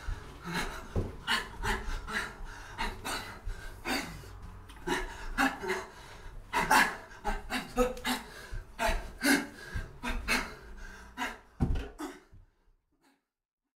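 A man's sharp, panting exhalations in quick irregular succession, a fighter breathing out hard with his punches while shadowboxing. They stop near the end.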